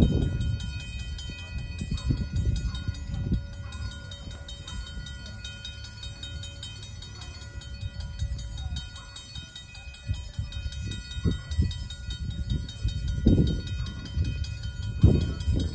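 Railroad grade-crossing warning bell ringing steadily while the crossing signals are active. A low rumble swells and fades underneath, strongest near the start and in the last few seconds.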